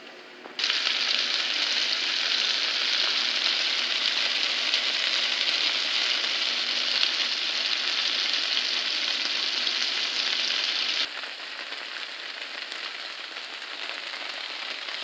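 Floured chicken pieces sizzling as they fry in garlic butter in a skillet: a dense, steady hiss that starts about half a second in and drops to a quieter sizzle at about eleven seconds.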